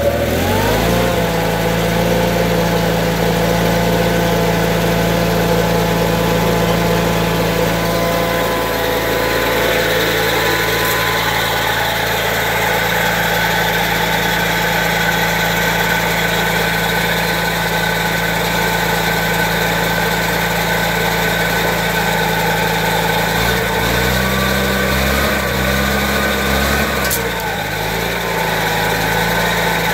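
Case Ingersoll 226 garden tractor's 16 hp Onan engine running steadily, with the front snowblower engaged and its auger, rebuilt jackshaft and pulleys spinning free with no snow load. The engine note shifts and wavers briefly about three-quarters of the way through, then settles again.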